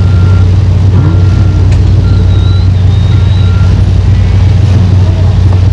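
Demolition derby car engines running in a loud, steady, deep drone. Over them, a backup alarm beeps about once a second.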